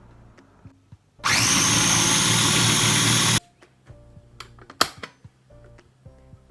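Ambiano food processor's motor running in one short burst of about two seconds, blending tomato soup; it starts and cuts off abruptly. A couple of sharp clicks follow as the bowl is handled.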